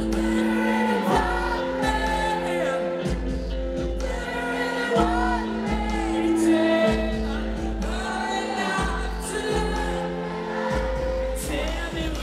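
Live rock band playing a slow song: held chords over a low bass line, with singing. It is heard from among the arena crowd.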